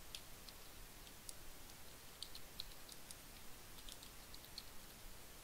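Faint computer keyboard typing: irregular, light keystroke clicks, a few bunched together at a time, over low room hiss.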